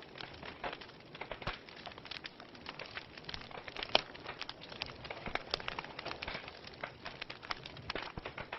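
Fireplace fire crackling with dense, irregular snaps and pops, one sharper pop about four seconds in.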